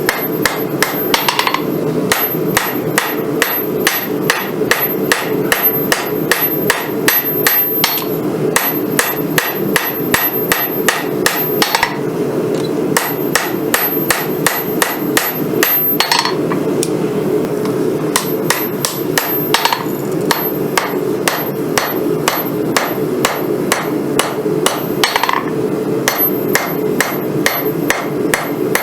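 Hand hammer striking a hot Damascus knife billet on an anvil, regular blows at about three a second with a few short pauses, over a steady rushing noise.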